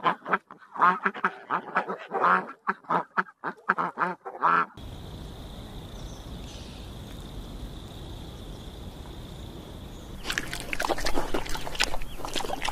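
Duck quacking in a quick series of calls for about the first five seconds. Then a steady hiss with a thin high whine, and from about ten seconds in a fast run of sharp clicks and chatter.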